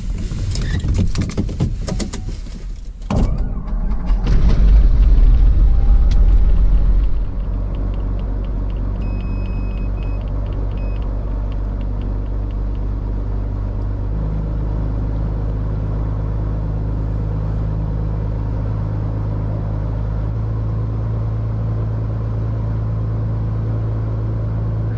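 Beechcraft Bonanza's six-cylinder piston engine starting. The starter cranks the propeller for about three seconds, the engine catches and runs up loudly for a few seconds, then about seven seconds in it settles to a steady idle of around 1100 RPM.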